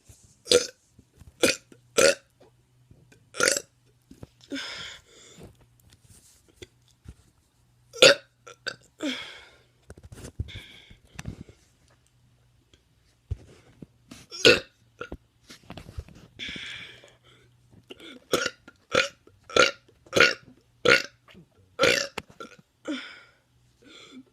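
A teenager burping over and over: a long series of short, sharp burps, often several in quick succession, with a few longer, drawn-out ones among them.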